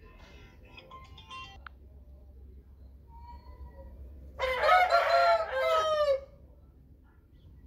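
A fighting rooster (gamecock) crowing once, a loud crow about two seconds long that starts a little past the middle and falls in pitch at its end. Fainter chirps come earlier.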